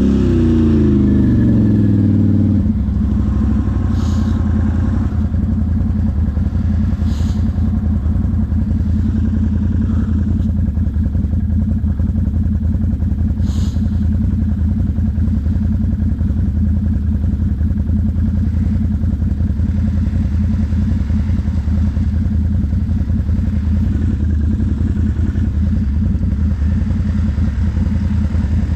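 ATV engine running under way: its pitch drops as it comes off the throttle in the first couple of seconds, then it runs at a steady, even speed. A few short clatters are heard about 4, 7 and 13 seconds in.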